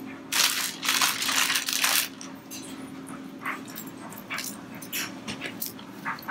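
Raw shrimp being handled and peeled in a ceramic bowl: a loud burst of rushing noise about half a second in, lasting about a second and a half, then scattered small clicks and wet handling sounds. A steady low hum runs underneath.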